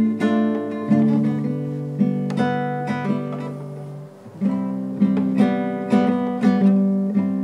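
Acoustic guitar strummed in slow chords. One chord is left to ring and fade for about three seconds before the strumming picks up again about four seconds in.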